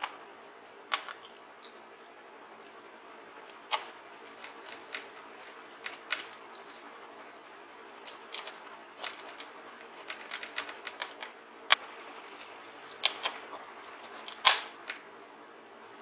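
Irregular small clicks and light taps of a screwdriver and screws against an open laptop's chassis as screws are fastened, a few of them sharper than the rest.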